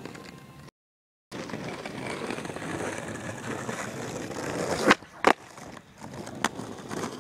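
Skateboard wheels rolling on rough asphalt, getting louder as the board nears, then two sharp clacks about a third of a second apart: the tail popping and the board slapping down on a tre-flip attempt. The sound drops out completely for about half a second near the start.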